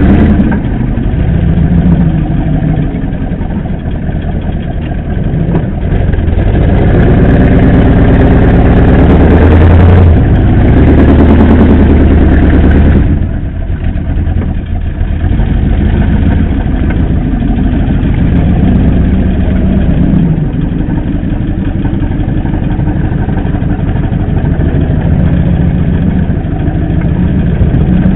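Mercedes G-wagen off-roader's engine running while crawling slowly over rough ground. It grows louder for several seconds about a quarter of the way in, then eases off suddenly.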